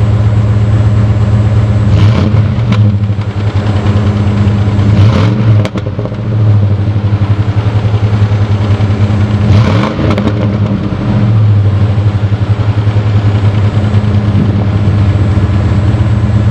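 A 7.4-litre Vortec (454) big-block V8 in a 1997 Chevy Suburban 2500 idles through a Magnaflow muffler on a 2.5-inch into single 3-inch exhaust. It is blipped in short revs about two, five and ten seconds in, dropping back to a steady idle after each. The muffler keeps it fairly quiet.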